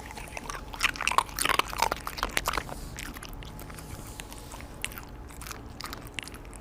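A corgi chewing and crunching ice from its water bowl: irregular crisp crunches and clicks, busiest in the first three seconds, then sparser.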